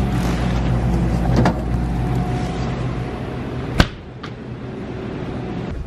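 Steady electrical hum of refrigerated glass-door freezer cases, with a couple of light clicks and one sharp knock a little under four seconds in. After the knock the hum is quieter.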